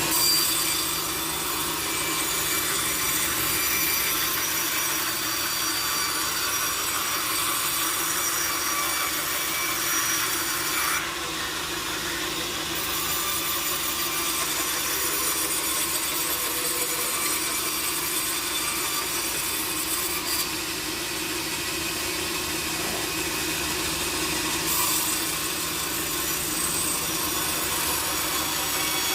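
Sawmill saw cutting through teak wood: a steady, dense rasping hiss over a constant machine hum, going on without a break.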